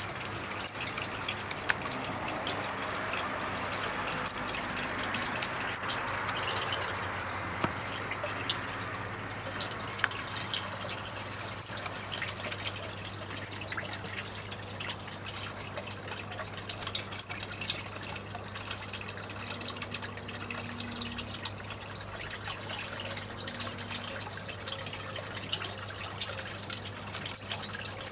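Water trickling and dripping into a koi pond, with many small splashes over a steady low hum. The trickle is fullest in the first third and eases a little after that.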